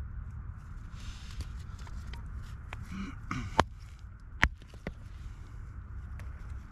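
Loose shale and rock fragments handled on a rubble slope: scraping and rustling, with two sharp clacks of stone on stone, about three and a half and four and a half seconds in, over a steady low rumble.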